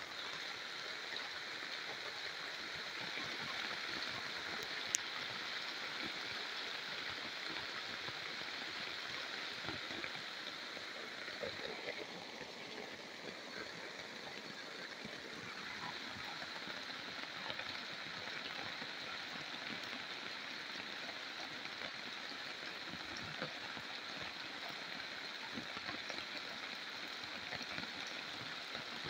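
Steady rain falling on the jungle foliage and a tarp, with scattered drops ticking, over a steady high-pitched hiss.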